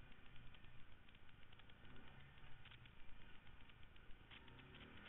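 Arctic Cat Prowler 550 side-by-side running faintly, a low steady engine hum with many light clicks and rattles.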